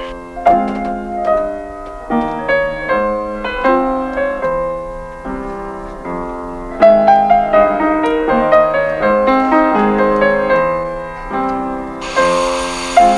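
Upright piano played solo: a classical piece with a flowing melody over chords. Near the end a loud noisy buzz sets in over the playing.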